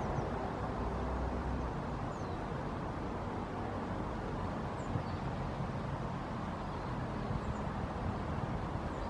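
Steady distant traffic hum, with several faint, short, high-pitched bird calls scattered through it.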